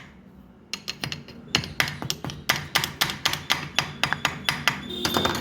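Quick run of sharp metal taps or clicks, about five a second, starting about a second in and stopping near the end, as a part is worked into place on a Nissan Micra steering rack during reassembly.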